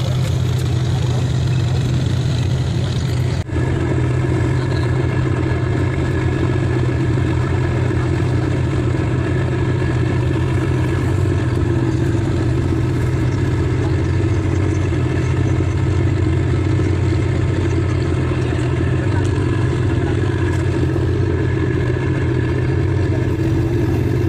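Boat engine running steadily under way, a loud, even low drone with a momentary break a little over three seconds in.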